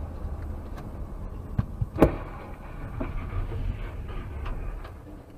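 A car's steady low road and engine rumble, broken about two seconds in by one sharp, loud bang of a collision impact, with a few smaller knocks and rattles around it.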